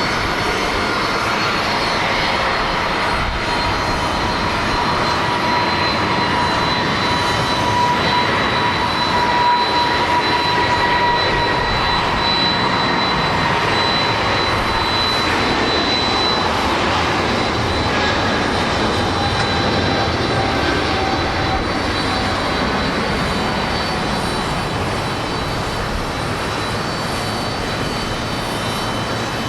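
Jet airliner taking off, its engines at takeoff thrust: a loud, steady rushing roar with whining tones that slowly fall in pitch as it passes, loudest about a third of the way through.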